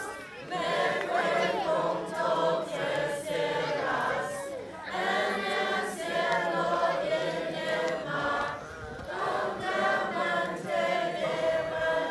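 A group of young people singing a song together in chorus, line by line, with short breaks between phrases.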